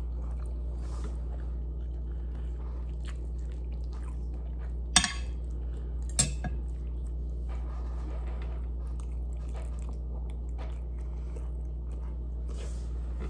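Close-up chewing and mouth sounds of a person eating chicken and rice. A metal fork clinks sharply on the plate twice, about five and six seconds in, over a steady low hum.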